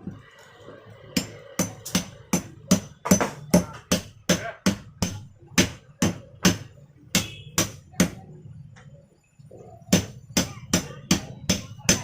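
Hammer blows struck at a steady pace of about three a second, stopping for about two seconds and then starting again near the end.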